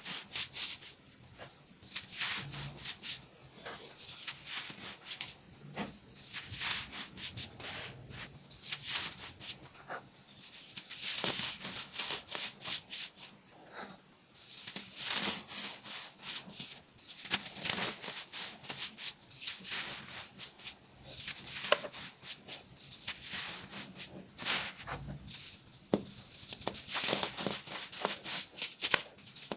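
Compressed baking soda being crushed by hand, giving crisp, crackly crunches in repeated clusters with short pauses between them.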